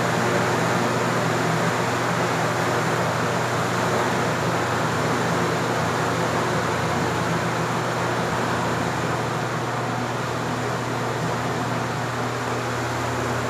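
Arge 50 cm oscillating wall fan running: a steady rush of air over a low, even motor hum.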